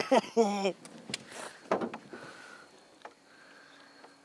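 A man's voice at the start, then a few brief scuffs, then a faint steady whine from an electric trolling motor.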